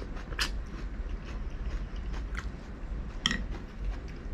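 A person chewing food close to the microphone: a run of small wet mouth clicks, with two sharper clicks at about half a second in and at about three seconds in.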